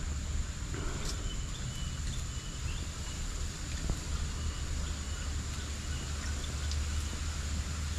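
Insects giving a steady, high-pitched drone over a low rumble, with a few faint short chirps and a couple of soft clicks.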